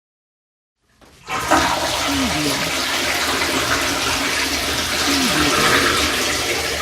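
After about a second of silence, water starts to flow with a sudden gush and keeps rushing steadily, with a few gurgles that drop in pitch.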